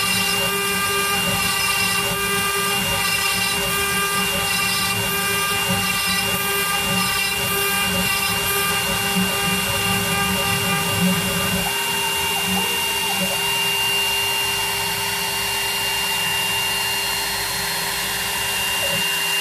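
Homemade CNC router carving a wood relief with a fine engraving bit: the spindle's steady high whine over a low cutting noise, which drops away about twelve seconds in, leaving the whine.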